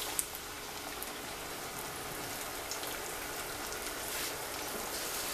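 Blended green tomato salsa pouring into a hot pan of oil and sautéed onion, sizzling and bubbling steadily.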